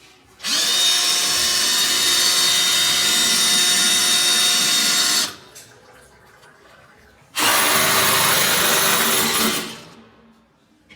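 Electric hammer drill boring into a wall: one run of about five seconds, then after a two-second pause a shorter run of about two seconds.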